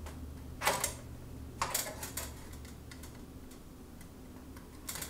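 Metal clicking and rattling from a sheet-metal retrofit bracket being handled in a steel light-fixture pan, in three short bursts: a little under a second in, around two seconds in, and near the end. A steady low hum runs underneath.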